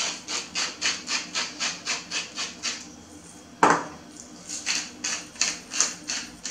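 Hand-twisted spice grinders grinding in quick rasping strokes, about four a second: first a salt grinder, then, after one sharp knock of a grinder set down on the wooden cutting board about three and a half seconds in, a pepper grinder.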